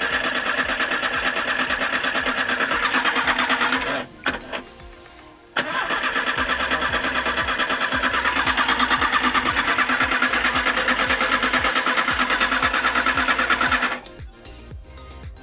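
VW AP 1.6 engine turning over on its starter motor without firing, its ignition coil disconnected, in two long bursts of cranking: the first stops about four seconds in, and the second starts about a second and a half later and runs until near the end. It is being cranked to push oil up to the hydraulic lifters, which it is slow to do.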